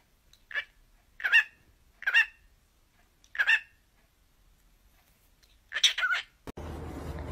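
Cockatiel giving short chirping calls, one at a time about a second apart, with a quick cluster of two or three calls near the end.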